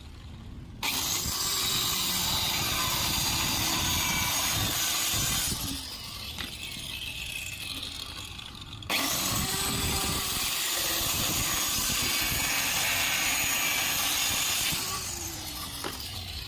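Handheld electric circular saw cutting plywood: two loud cuts of about five and six seconds, each starting suddenly, with the saw running quieter between them and after the second.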